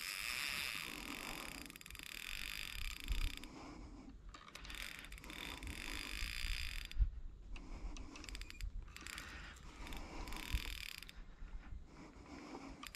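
Fishing reel being cranked in three stretches with short pauses, a faint whirr of its gears, as line is wound back in on a hooked shark.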